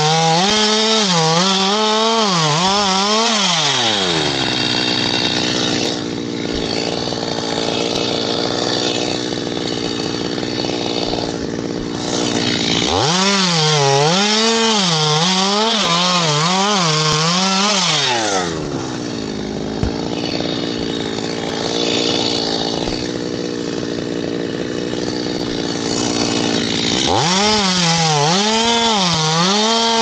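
Stihl chainsaw cutting through a coconut palm trunk: the engine runs at full throttle with its pitch wobbling as the chain bites, three times, and falls back to a lower, steady speed between the cuts.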